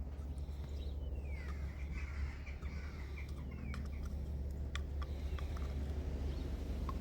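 A bird calling repeatedly, a string of falling, wavering calls about a second in that die away after a few seconds. Under it runs a steady low rumble, with a few sharp clicks.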